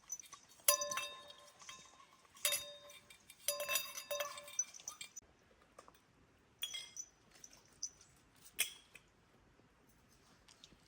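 Ringing clinks of hard objects knocked together: a single strike, another, then a quick cluster in the first half, followed by a few lighter clicks.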